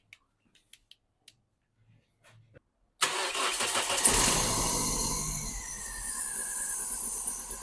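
A few faint clicks, then the 2002 Toyota Yaris's four-cylinder petrol engine cranks and starts about three seconds in. It flares up and then settles toward idle, falling slowly in level. It is running on spark plugs just refitted after they were found not properly in, which was the cause of its misfire.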